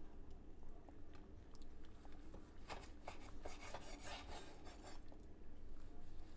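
A knife sawing through a cooked flat iron steak, slicing it into thin strips against the grain: faint rasping strokes, quickening to about four a second from about two and a half seconds in.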